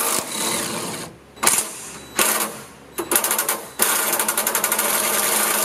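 Cordless impact driver with a 5/8 socket hammering loose a rear bumper mounting bolt. It runs in several short bursts, then a longer rapid rattling run of about two seconds in the second half.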